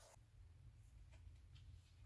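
Near silence: room tone with a low hum and a few faint light ticks, such as paper being handled.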